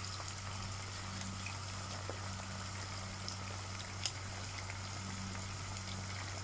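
Green pepper slices deep-frying in hot oil in a pan, a steady sizzle and bubbling. A steady low hum runs under it, and there is one light tap about four seconds in.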